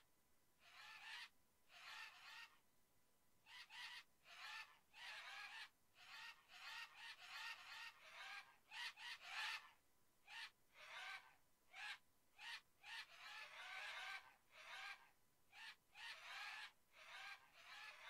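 A flock of birds calling: many short, overlapping calls in quick bursts, about one or two a second with brief gaps, faint throughout.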